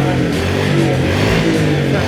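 Background music with sustained notes changing in steps.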